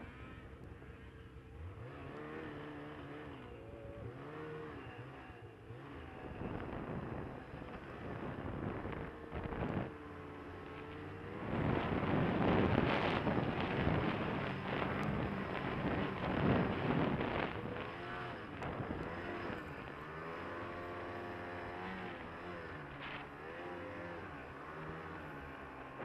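Snowmobile engine revving up and down as it is ridden through deep powder snow, its pitch rising and falling with the throttle. Through the middle there is a longer, louder stretch where the engine is held high and a rushing noise of wind and thrown snow covers it.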